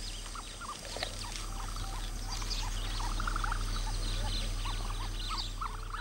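Ostrich chicks peeping: many short, high chirps from several at once, irregular and overlapping, over a steady low hum.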